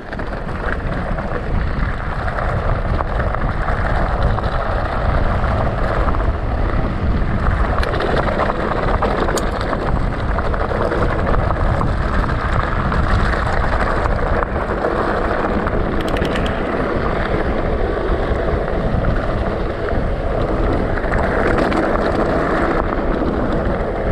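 E-bike tyres rolling over loose gravel and dirt on a fast downhill freewheel, a steady rumble with wind rushing over the microphone.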